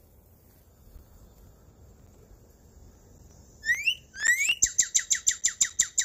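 Recorded northern cardinal song, beginning about three and a half seconds in: two rising slurred whistles, then a fast run of short down-slurred notes, about eight a second.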